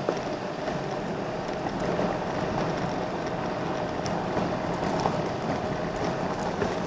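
Golf cart driving over a gravel road: the tyres crunch steadily on the gravel, with scattered clicks and small knocks from the bumps, and a faint steady whine running through it.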